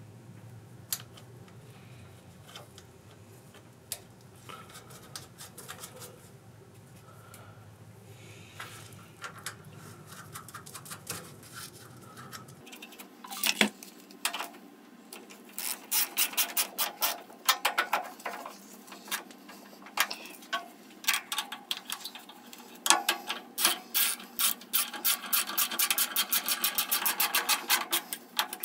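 Hand work on small engine parts: scattered clicks, scrapes and rubbing of tools and metal parts, busier from about halfway through and ending in a long run of quick clicks. A faint low hum cuts off about halfway.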